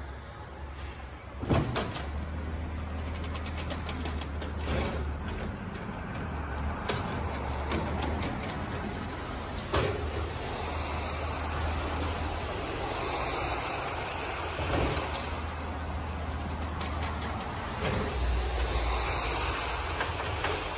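Peterbilt 320 garbage truck's natural-gas engine running steadily as its Amrep HX-450 automated side-loader arm reaches out, grabs and lifts a recycling cart. Several sharp clunks are heard along the way, the loudest about a second and a half in.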